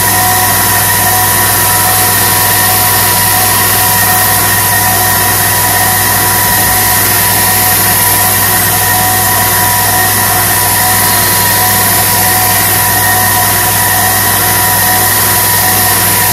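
2x42-inch belt sander running steadily with a fine-grit Trizact belt while a VG10 kitchen knife edge is sharpened on it: an even motor hum and belt hiss with a few steady whining tones.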